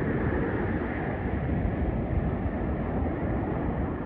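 Steady wind rumbling and buffeting on the microphone, a continuous low noise with no distinct events.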